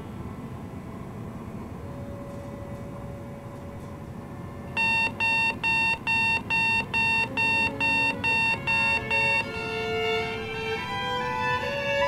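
Steady low background rumble, then an electronic alarm beeping loudly and evenly, about three beeps a second for around five seconds. Near the end it gives way to violin notes stepping upward in pitch.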